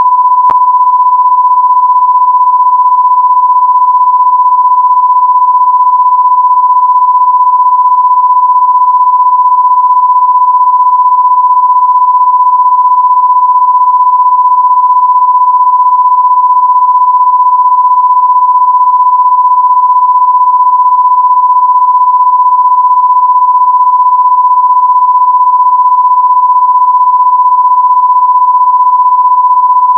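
Loud, steady electronic sine-wave tone held at one unchanging mid-high pitch, with a brief click about half a second in.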